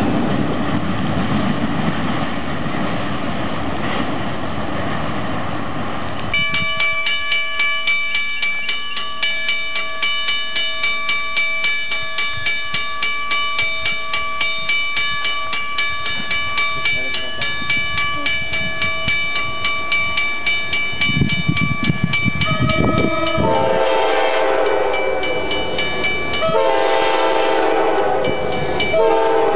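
A double-stack intermodal freight train rumbles past on the rails for the first six seconds, then the sound cuts off. A bell then rings steadily about twice a second. Near the end, Norfolk Southern diesel locomotives approach with a rising rumble and sound their air horn in two long blasts, with a third just beginning.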